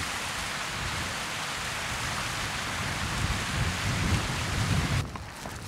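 Steady outdoor rushing noise, with irregular low rumbles about three to five seconds in. It cuts off suddenly about five seconds in, leaving a quieter background with a few faint clicks.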